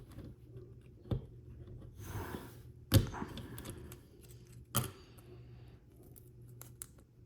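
Small plastic model-car parts being handled and pressed together: three sharp clicks or taps, the loudest about three seconds in, with a short rustle before it and a few faint ticks later.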